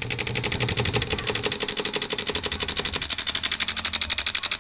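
Homemade pneumatic airgun firing full auto: its solenoid-driven valve and quick exhaust valve cycling in a fast, perfectly even stream of sharp pops, well over ten shots a second.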